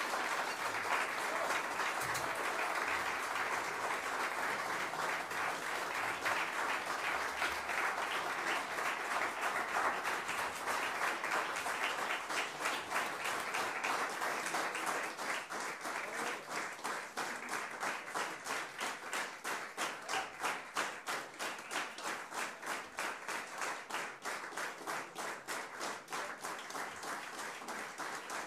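Concert audience applauding, a dense spread of clapping that about halfway through settles into slow rhythmic unison clapping of about two to three claps a second, gradually fading.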